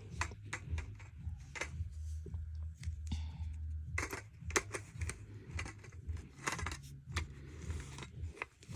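Irregular plastic clicks and knocks of a 4120B smoke alarm being handled while a battery is pushed into it, over a steady low hum.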